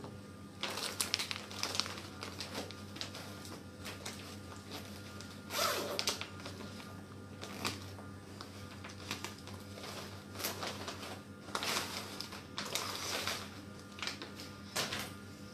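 Clear plastic packaging bag rustling and crinkling in irregular bursts as a folded dress is handled and taken out of it.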